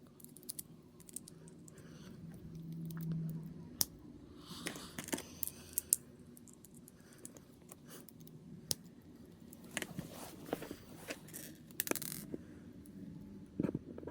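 Small plastic model-kit parts being handled and pressed together: scattered light clicks and taps, with a couple of brief rustles and a short low hum about three seconds in.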